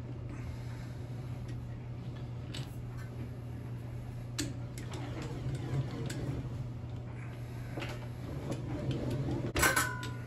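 Bench-top slip roll working a sheet of thin metal through its rollers, with scattered light ticks and clicks. Near the end a loud metallic clatter as the sheet flexes, leaving a brief ring.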